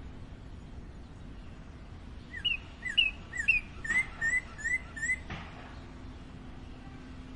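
Northern cardinal singing one phrase of clear whistled notes about two seconds in: a few slurred notes, then a quicker run of rising notes, lasting about three seconds. A faint steady low hum runs underneath.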